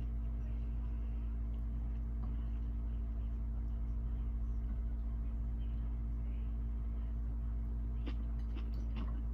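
Steady low hum with a few faint clicks near the end.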